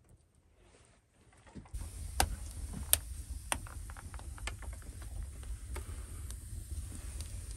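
Wood fire burning in an open fireplace, crackling with irregular sharp pops over a steady low rumble. It starts suddenly about two seconds in, after a quiet start.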